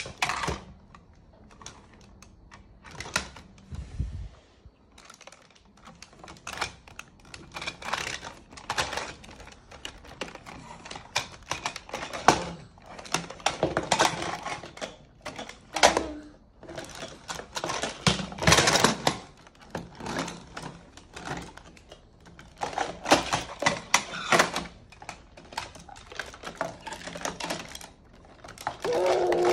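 Hard plastic toy dinosaurs clicking and clattering against each other and a stone tabletop as they are handled, in irregular runs of quick clicks and knocks.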